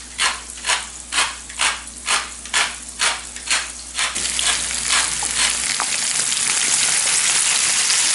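Hand pepper mill grinding in even twists, about two a second, over a frying pan. About four seconds in the grinding stops and sliced beef tongue frying in the skillet sizzles steadily, growing a little louder.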